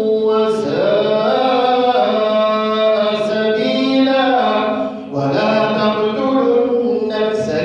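An imam's voice reciting the Quran aloud in a slow, melodic chant, holding long drawn-out notes and sliding between pitches, with a short break for breath about five seconds in.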